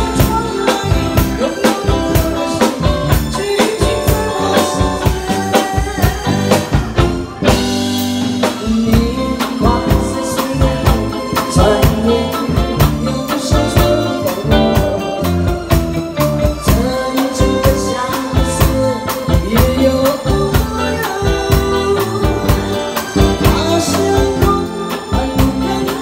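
A woman singing a Mandarin song into a microphone, backed by a band with a drum kit keeping a steady beat.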